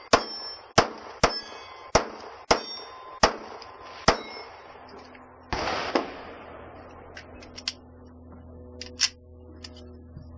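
A 9 mm Glock pistol fired seven times in quick succession, about two shots a second, with steel target plates ringing after the hits. The shooting stops about four seconds in, followed by a short burst of rustling noise and a few light clicks.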